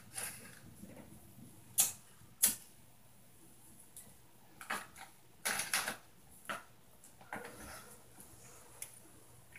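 Irregular sharp knocks and clicks. Two loud single knocks come about two seconds in, a quick rattling run of clicks comes near the middle, and fainter scattered taps follow.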